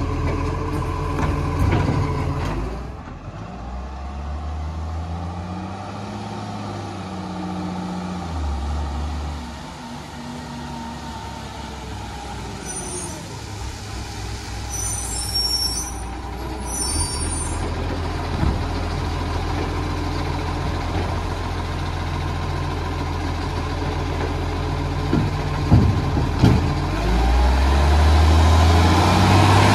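Iveco side-loader rubbish truck's diesel engine running, rising and falling in pitch as it pulls away, with short air-brake hisses in the middle. Near the end the engine grows louder as the truck comes close.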